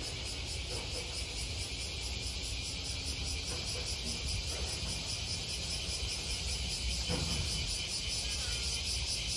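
Steady, dense chorus of insects, a high buzzing with a fast pulse, over a low background rumble.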